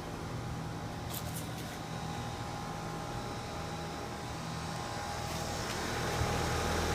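Outdoor air-conditioner condensing units running: a steady hum of compressor and fan with a faint steady whine above it, growing louder near the end.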